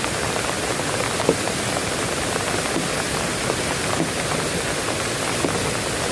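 Steady heavy rain falling, with scattered individual drops ticking loudly on a surface, one louder drop about a second in.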